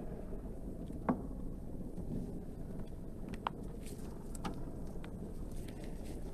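A metal carving instrument scraping and cutting into a bar of soap, heard as a few light clicks, the loudest about a second in, over a steady low background rumble.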